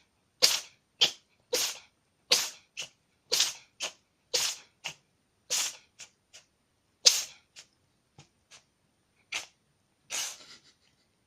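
A cat sneezing over and over: a long run of short, sharp sneezes, about two a second at first, then fewer and weaker, with the last one about ten seconds in.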